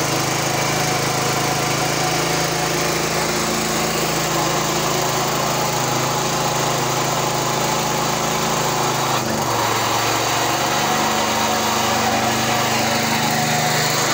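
Small diesel engine running steadily, driving a belt-driven coffee pulper. Its pitch dips briefly about nine seconds in, then returns.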